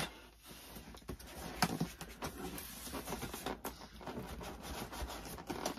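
Cardboard shipping box being opened by hand: the flaps pulled up and rubbing against each other, with scattered scrapes and light taps and one sharper tap about a second and a half in.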